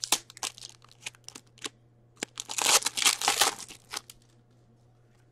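Hockey card pack wrapper being torn open and crinkled by hand: scattered crackles and clicks, then a denser stretch of crinkling about two and a half seconds in.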